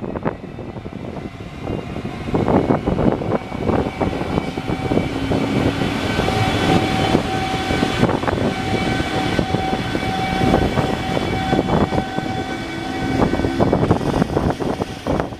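Train passing close by at a level crossing, its wheels clattering over the rails, with a steady whining tone through the middle of the pass.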